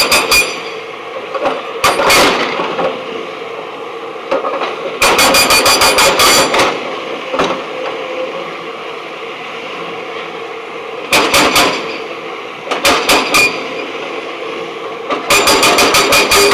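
Hydraulic rock breaker on a backhoe loader hammering stone in repeated bursts of rapid blows, about ten a second, each burst lasting up to about two seconds. The machine's engine runs steadily between the bursts.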